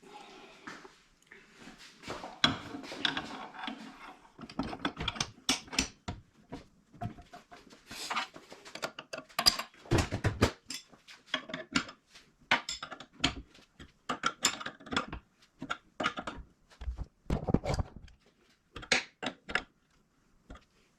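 Irregular clinks, clicks and knocks of metal parts and hand tools being handled, typical of pipe fittings being put together, in a small room.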